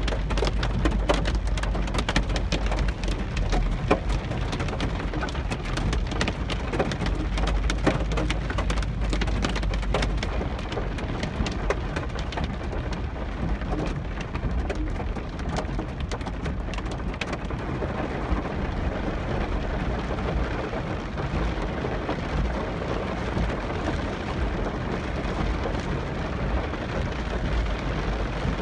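Hail and heavy rain pelting a car's roof and windshield, heard from inside the cabin: dense sharp ticks of hailstones over a steady rush of rain and a low rumble from the car. The ticks thin out over the second half as the hail gives way to pouring rain.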